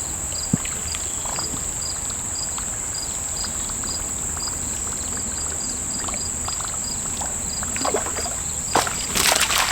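Steady insect drone with a cricket chirping about three times a second. Near the end comes a short, loud splash at the water's surface: a sunfish striking the topwater plopper lure.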